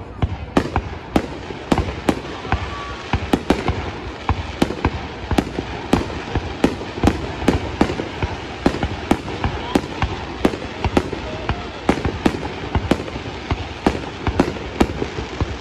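A steady barrage of aerial firework shells bursting, sharp bangs about twice a second with a continuous rumble between them.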